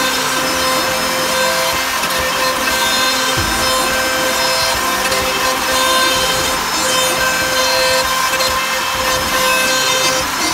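CNC gantry router spindle milling solid wood: a steady cutting noise with a constant whine over it.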